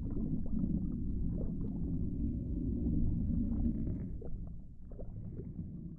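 Low, murky underwater ambience rumble with scattered faint blips. It eases off over the last two seconds.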